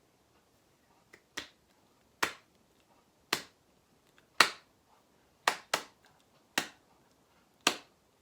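Finger snaps keeping a steady beat, about one a second, with two snaps close together about five and a half seconds in, while the song is sung silently.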